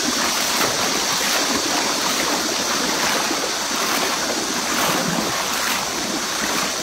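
Steady rushing of flowing river water, an even hiss with no distinct strokes.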